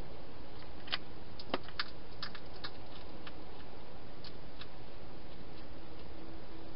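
Wild hedgehog crunching dry food inside a plastic feeding box: sharp, irregular clicks and crunches, bunched between about one and three seconds in and sparser after, over a steady hiss.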